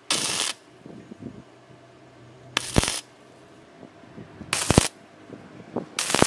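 Wire-feed (MIG) welding gun laying four short tack welds on thin steel rod, each a crackling, sputtering arc of about half a second, the last one starting just before the end. Faint small clicks of the torch and metal being handled come between the welds.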